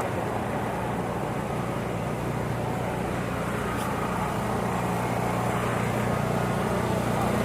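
Steady low hum of an engine running, with general street noise, growing slightly louder near the end.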